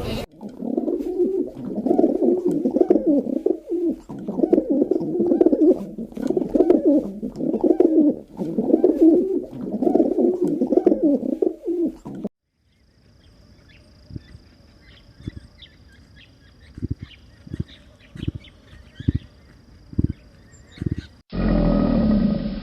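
Low animal calls repeated about once a second for roughly twelve seconds. After a cut comes a much quieter stretch of soft, low pulses, and a louder, different animal sound starts near the end.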